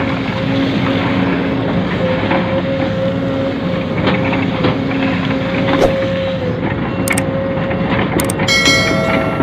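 Radio-controlled model dump truck running: a steady motor and gear whine over a noisy mechanical rattle, with a few sharp clicks and a short high electronic tone near the end.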